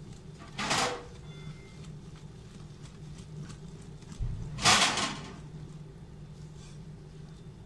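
Hand whisk beating thick cake batter in a glass bowl, with faint ticks of the wires against the glass and two louder scraping sounds, about a second in and about five seconds in.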